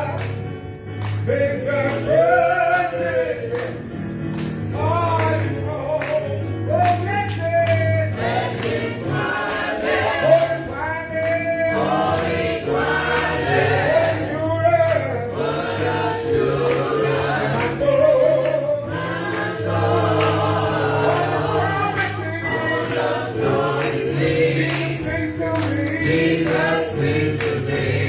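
Church choir singing a gospel song, several voices together over a steady beat.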